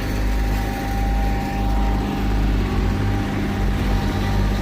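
Heavy asphalt paving equipment's diesel engines running steadily, a constant low drone.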